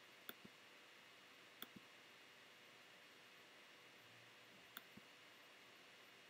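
Computer mouse clicking three times over faint hiss, each click a quick press-and-release pair of ticks, the pairs a second or more apart.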